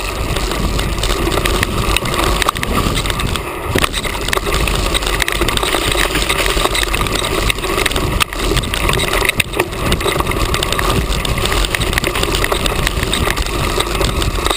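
Rushing wind noise and the rattle of an action camera riding on a mountain bike going fast down a rough dirt trail, with sharp knocks from bumps every few seconds.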